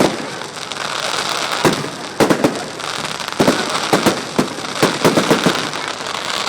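Fireworks display: aerial shells bursting in quick clusters of sharp bangs over a steady crackling hiss.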